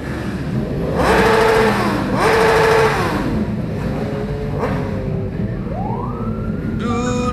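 A group of motorcycle engines idling and revving, the engine pitch rising and falling, with two louder stretches about one and two seconds in. Music starts right at the end.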